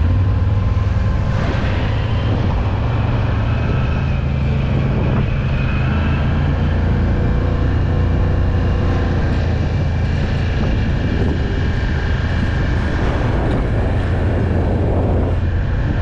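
Can-Am off-road vehicle's engine running steadily under way, a continuous low drone with no big revs.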